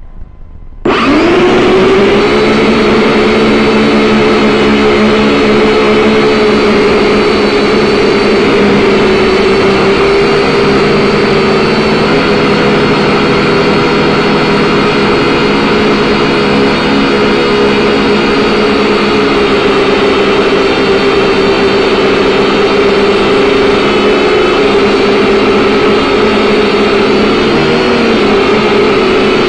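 Electric motors and propellers of a small radio-controlled drone spinning up about a second in with a brief rise in pitch, then a loud, steady, many-toned buzz as it climbs, heard up close from the aircraft itself.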